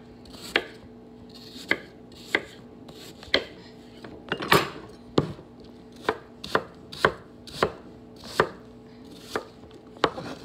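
A chef's knife chopping apple on a wooden cutting board: about a dozen separate knocks of the blade hitting the board at an uneven pace, the loudest about halfway through, over a faint steady hum.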